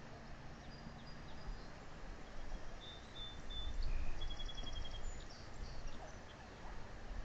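Wind rushing over the microphone, a steady noise that swells in the middle, with faint high bird chirps and a short, evenly spaced trill about four seconds in.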